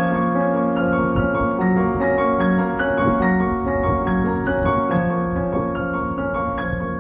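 Background piano music: a slow melody of held notes over a low accompaniment.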